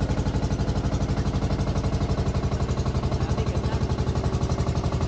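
Motorised outrigger boat (bangka) engine running steadily underway, with a fast, even chugging beat.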